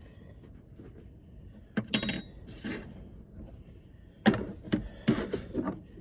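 Cooking gear being handled: a string of sharp clanks and knocks, several in a few seconds, the loudest in the second half.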